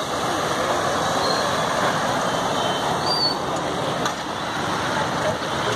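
Steady road traffic noise from motorcycles and cars on a rain-wet road, an even hiss without breaks.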